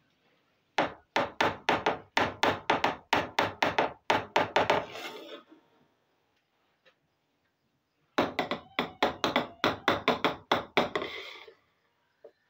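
Two runs of rapid, evenly spaced sharp knocks, about three or four a second, each lasting around four seconds with a short silent gap between them.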